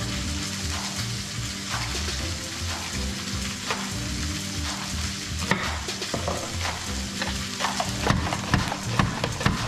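Background music with a steady hiss, with occasional knife taps on a wooden cutting board. In the last couple of seconds come a run of sharp clacks from a hand-pushed mandoline slicer cutting vegetables.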